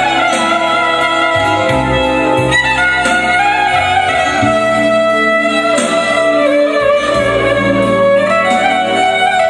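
Live manele band music: an electric violin plays the lead melody over the band's accompaniment.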